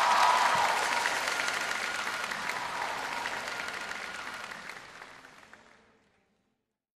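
Large concert audience applauding, a dense wash of clapping that fades away steadily and is gone about six seconds in.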